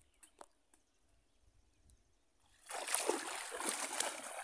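Shallow water splashing and sloshing as hands work inside bamboo polo fish traps standing in the water. It starts about two and a half seconds in, lasts about two seconds, and comes after a quiet stretch with a few faint ticks.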